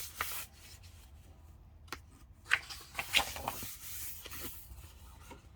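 Paper rustling and rubbing in several short scrapes: the pages of a picture book being handled and turned.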